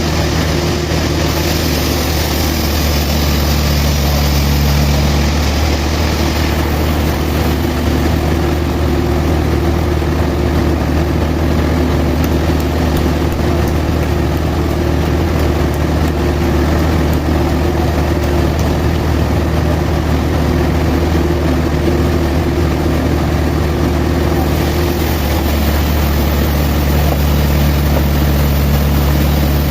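Sawmill machinery running steadily: a loud, low engine drone with a hiss over it. The hiss drops away about six seconds in and comes back near the end.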